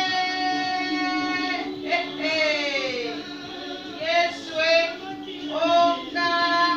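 A children's song with a high, child-like singing voice holding long notes, one sliding down in pitch, over a steady low note underneath.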